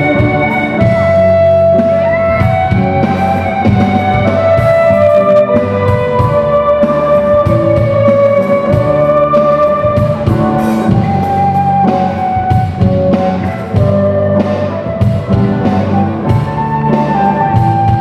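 Live band playing a Polish Christmas carol (kolęda): guitar and drum kit keeping a steady beat under a held melody line.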